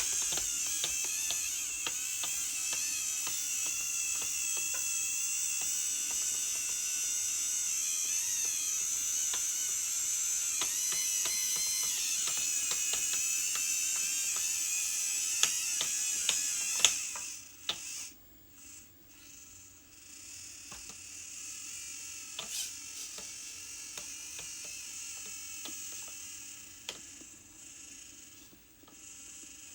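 Small electric motors and gearboxes of a radio-controlled construction model whining, with many small clicks and ticks. The whine cuts out sharply a little past halfway, then comes back more quietly with scattered clicks.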